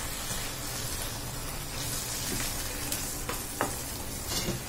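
Chicken curry with curd and spice masala sizzling in a pan while a wooden spatula stirs it, a steady hiss with a few light knocks and scrapes of the spatula against the pan near the end.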